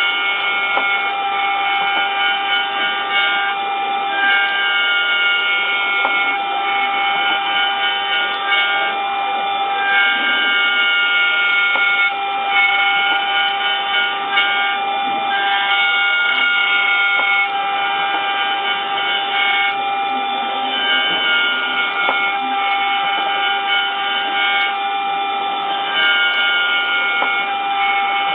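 Mini 5-axis CNC router running on an impeller job: a steady high-pitched whine made of several held tones, with higher tones that switch on and off every second or two as the machine's motion changes.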